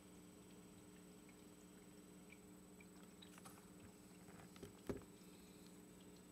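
Near silence: a faint steady hum with a few scattered faint ticks, and one sharper click about five seconds in.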